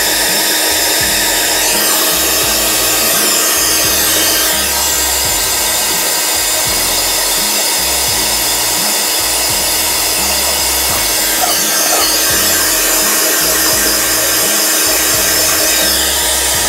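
Hot air gun blowing steadily as it heats and softens black plastic exterior trim, with a metal scraper rubbing over the softened plastic. Background music plays underneath.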